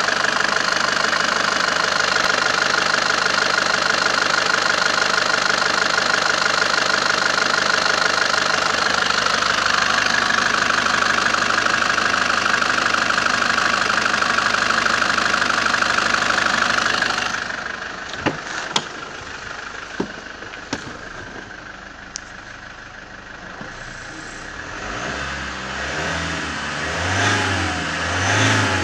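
A Great Wall V200's 2.0-litre turbo-diesel engine idling steadily, heard close up under the open bonnet. After a cut there are a few sharp clicks, and then the engine is revved up and down several times near the end, heard from inside the cab.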